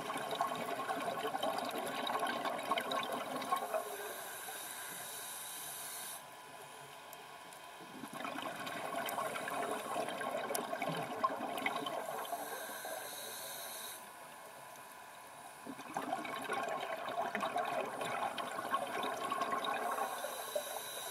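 Scuba diver breathing through a regulator, heard underwater: three cycles of bubbly exhalation lasting about four seconds each, each followed by a shorter hiss of the regulator on the inhale and a brief quiet gap.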